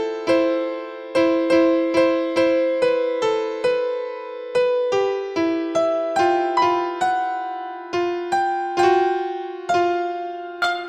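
Background music: a simple keyboard melody played one note at a time, about two or three struck notes a second, each ringing and fading.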